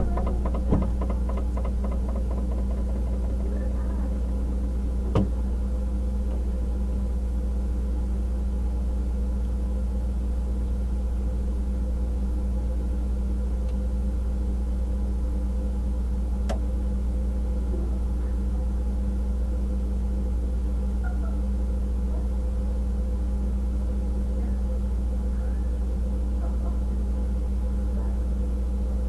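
A steady low hum at an even level, with a single sharp click about five seconds in.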